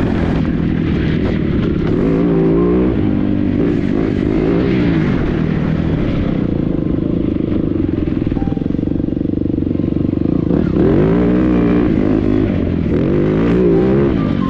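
TM EN300Fi enduro motorcycle engine revving up and down as it is ridden over dirt, heard from the rider's helmet. The pitch holds fairly steady for a few seconds mid-way, then rises and falls again with the throttle near the end.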